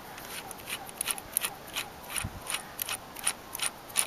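Allen key turning out the bolt of a motorcycle bar-end weight: a quick, irregular run of small metal clicks and scrapes as the screw is backed out.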